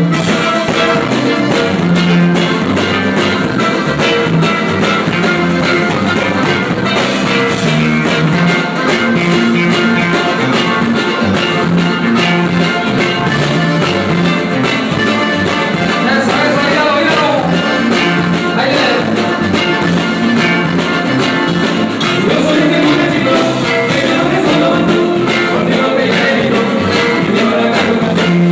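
Live norteño band playing: button accordion over guitar, a pulsing bass line and drums keeping a steady beat.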